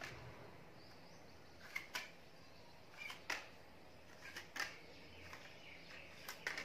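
Faint light clicks and taps, about ten scattered, some in quick pairs, as a small cardboard jumping spider toy is pressed down with a finger and springs back up on a hard floor.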